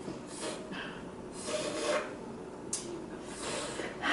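Drinking straws slurping water and air in several short, raspy sucks; one straw is pierced with holes near the top, so it pulls in air and sputters instead of drawing water. A single sharp tick about two-thirds of the way through.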